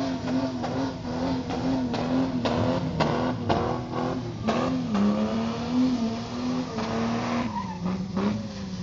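Nissan SUV engine held at high revs while the vehicle slides on wet ground. The pitch wobbles with the throttle and dips briefly about five and eight seconds in. A few sharp cracks sound between two and five seconds in.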